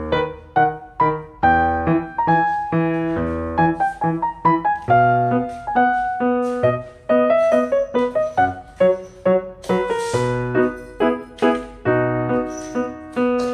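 Background piano music: a run of quick struck notes and chords.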